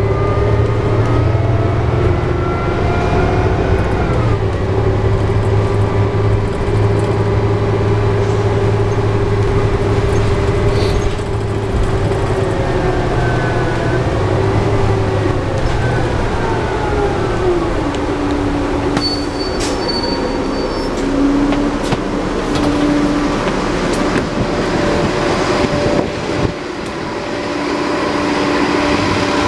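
New Flyer D60LFR articulated diesel bus (Cummins ISL9 engine, Allison B500R automatic transmission) heard from inside while driving: a steady engine hum under a drivetrain whine that rises and falls with speed. About seventeen seconds in the whine drops as the bus slows, and a short high beep sounds around twenty seconds in. Near the end the bus is heard from outside at the stop.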